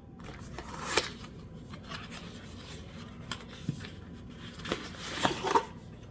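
A small cardboard product box being opened by hand: rubbing and scraping of the packaging, with a few sharp clicks and taps, the loudest about a second in and a cluster near the end.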